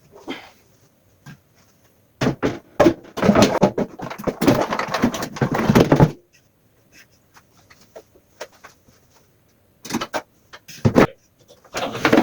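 Knocking and clattering of washing machine parts being handled and fitted back in place: a dense run of knocks for about four seconds, then two short knocks near the end.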